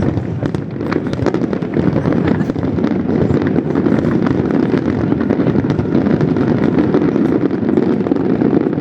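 Aerial fireworks going off in a dense, continuous barrage: many overlapping booms and crackles merge into one rumble, getting a little louder after the first few seconds.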